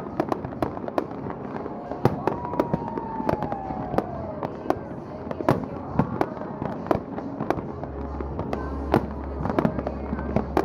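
A fireworks display: shells bursting in a rapid, irregular string of bangs and cracks throughout, with a long falling tone about two to four seconds in.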